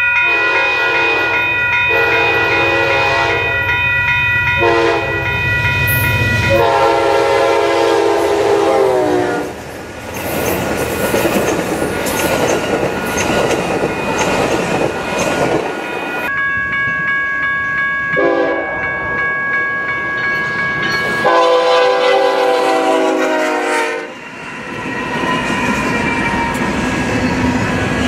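Diesel locomotive horn blowing several chord blasts as a passenger train approaches, the chord dropping in pitch as it passes, then the rumble and clatter of its double-deck cars going by. Another train's horn then blows several blasts, again falling in pitch, before the steady rumble of a long double-stack container freight train rolling past.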